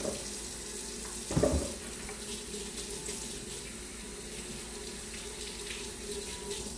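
Water running steadily from a tap into a sink, shut off right at the end. A brief loud low sound breaks in about a second and a half in.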